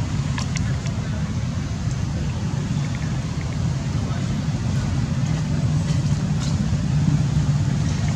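Steady low background rumble, with a few faint short clicks.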